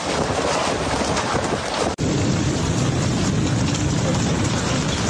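Heavy hailstorm: a dense, continuous clatter of hailstones pelting down. About two seconds in it breaks off abruptly and gives way to a lower, steady rush of heavy rain.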